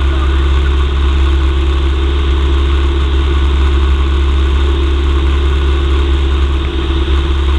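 Cessna 172M's four-cylinder piston engine and propeller running steadily in flight, a loud, even drone heard inside the cabin.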